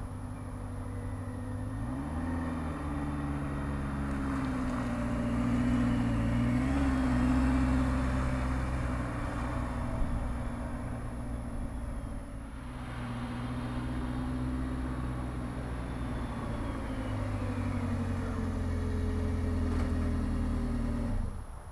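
Supercharged four-cylinder engine of a 1991 Subaru Sambar Dias II kei van running as the van drives and pulls up, its pitch rising and falling with the throttle. The engine sound stops suddenly near the end.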